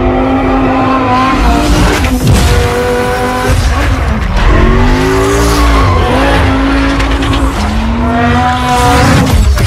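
Sports car engine revving hard, its pitch climbing and dropping repeatedly through gear changes, with tyre squeal as the car skids through turns.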